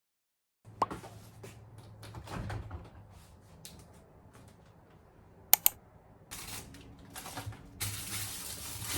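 Household handling sounds, most likely items being moved around a kitchen or refrigerator: light knocks and clicks, two sharp clicks in quick succession a little over halfway, then a steady hiss near the end.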